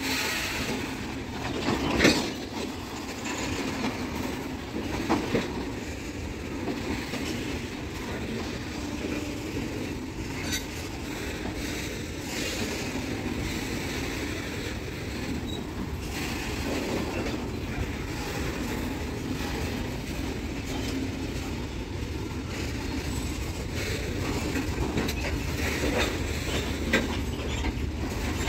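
Freight wagons of a long goods train rolling past: a steady rumble and rattle, with wheels clattering over rail joints now and then and sharp metallic clanks, the loudest about two seconds in and another near the end.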